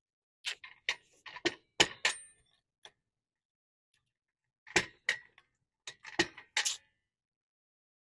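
Car jack being set under the car and worked by hand: short sharp clicks and knocks in two bursts, some with a brief ring.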